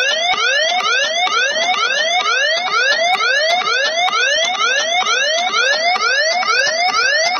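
A police-siren sound in a trance remix playing through a DJ app: a rising siren sweep repeating quickly, about two a second, loud and steady.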